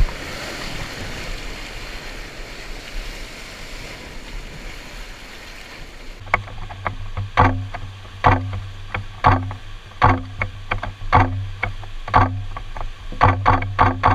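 Whitewater rapids rushing around a kayak. About six seconds in, guitar music takes over, with plucked notes in a steady beat that quickens near the end.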